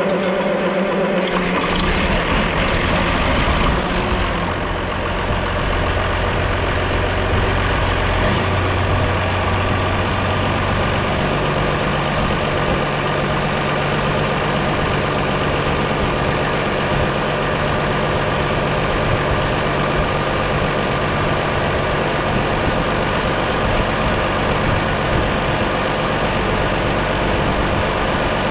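John Deere 4840's six-cylinder turbodiesel being started for the first time after an overhaul. It fires about a second and a half in, runs rough and noisy for a couple of seconds, then settles into a steady idle.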